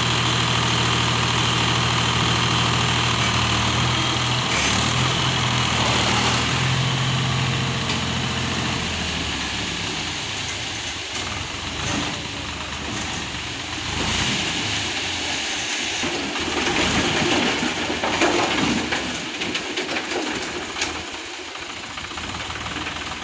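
Mahindra Shaktimaan 453 tractor's three-cylinder diesel engine running with a steady low note, stepping up slightly in pitch about four seconds in. After about nine seconds the steady note gives way to a rougher, uneven noise with scattered knocks.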